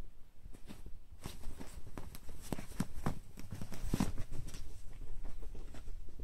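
A Bengal cat and a Ragdoll cat play-fighting on a bed: an irregular run of soft thumps and rustles from paws and bodies on the bedding, busiest about three to four seconds in.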